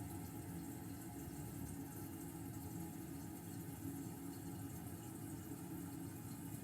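Toilet tank refilling after a flush: a steady, even run of water into the cistern, with no surge or gurgle of the flush itself.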